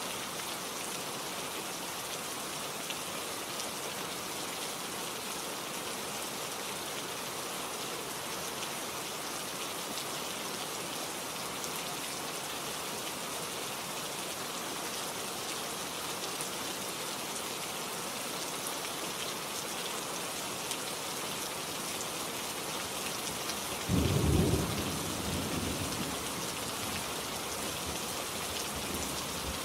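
Steady rain falling, with a single clap of thunder about three-quarters of the way through that rumbles and fades over a few seconds.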